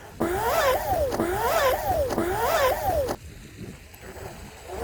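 Small RC boat's brushless electric motor and propeller whining, the pitch rising and falling three times as the throttle is worked, then cutting off sharply about three seconds in.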